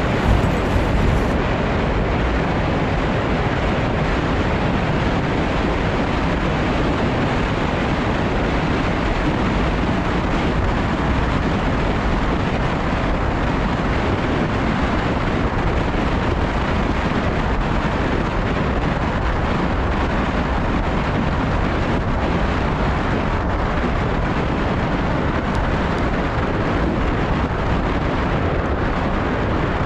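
Steady wind noise rushing over the microphone of a gravel bike descending a road at speed.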